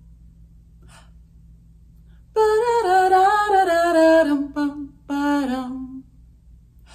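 A woman singing a wordless tune: quiet at first, then a little over two seconds in a melodic phrase that steps downward for about two seconds, a short note, and a last falling phrase that settles on a held low note.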